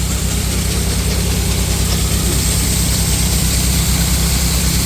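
Heavy engine running steadily at idle, with an even, rapid low pulse throughout.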